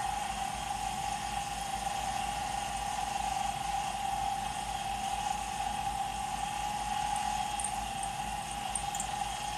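Smithy 1220 LTD combination mill-lathe running, its spindle turning a 3/16-inch end mill that is being fed slowly along a cut in a metal plate, with a steady whine over the motor hum.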